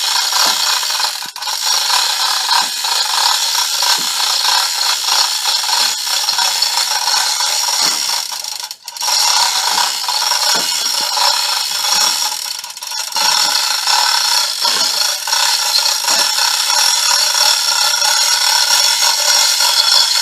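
Hand-operated hoist being worked to lift a water heater, its mechanism rattling and clicking steadily, with a brief break about nine seconds in.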